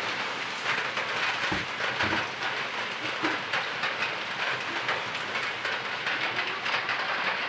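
Aluminium pot of crabs, fish and clams at a rolling boil on a portable gas stove: steady bubbling and hissing, with two low thumps about one and a half and two seconds in.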